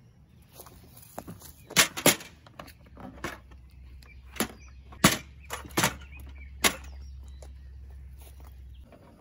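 Sharp clacks and knocks of a portable gas camp stove and its carrying case being opened and handled on a slatted folding table: about seven hard knocks spread over several seconds.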